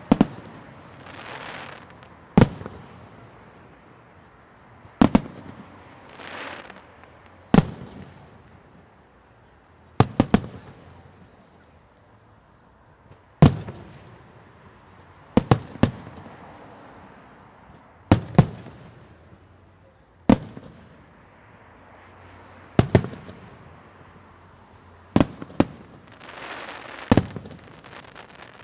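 Fireworks display: aerial shells bursting with sharp bangs every two to three seconds, several in quick pairs, with brief hissing between some of them.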